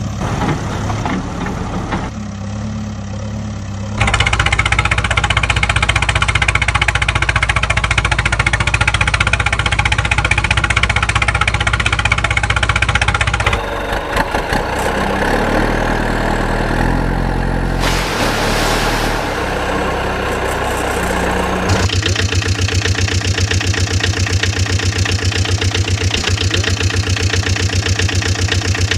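Vehicle engine sounds, running and idling with a steady low rumble. The sound changes abruptly several times, as if cut between different clips.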